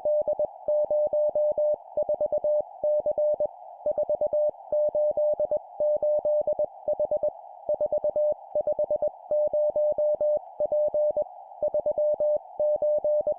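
Morse code (CW) practice tone sent at 20 words per minute: a single steady tone keyed on and off in dots and dashes, in four-character groups of three digits and a letter separated by brief pauses, over a steady hiss.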